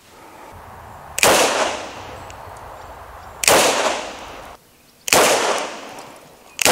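Smith & Wesson Model 325 Thunder Ranch .45 ACP revolver fired four times in single action, the shots about one and a half to two seconds apart. Each shot is a sharp report followed by about a second of echo dying away.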